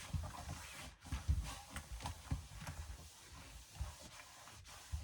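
Irregular soft bumps and knocks with light rubbing, as the camera is handled and set back in place.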